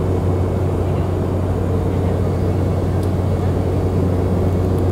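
Cabin noise of a jet airliner in flight, heard at a window seat beside the turbofan engine: a deep, steady hum under an even rushing noise that does not change.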